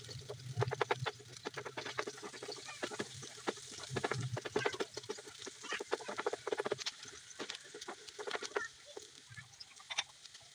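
Chopped onion and garlic frying in oil in a nonstick pan: irregular crackles and pops, with a spatula stirring against the pan at the start.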